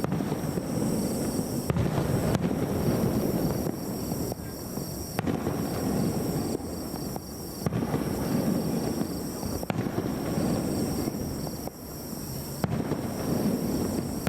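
Aerial firework shells bursting in a display: several sharp bangs a few seconds apart over a continuous low rumble of overlapping explosions.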